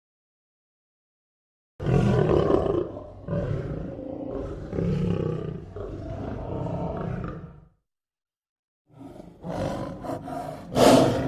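Lion roaring: after a moment of silence, a long rumbling roar swelling several times over about six seconds, then a brief pause before another roar that builds to its loudest near the end.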